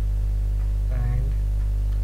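Steady electrical mains hum on the recording: a low hum with a buzzy ladder of higher steady tones above it.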